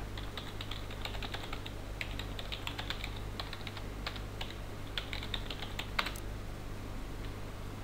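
Typing on a computer keyboard: a run of irregular key clicks that stops about six seconds in, over a steady low hum.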